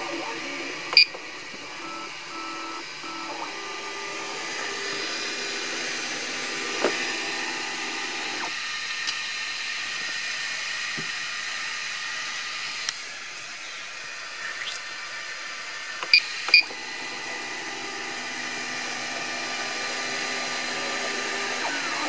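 3D printer's cooling fans running steadily with faint stepper-motor tones while the print is paused. The controller's buzzer gives a short beep about a second in and two quick beeps at about sixteen seconds, and near the end the stepper motors make wavy rising-and-falling tones as the print head moves again.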